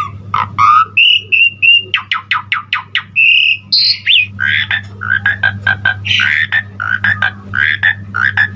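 Asian pied starling (jalak suren) singing a varied, busy song of whistles, trills and mimicked calls. About four seconds in, it breaks into a fast run of short repeated notes. A steady low hum runs underneath.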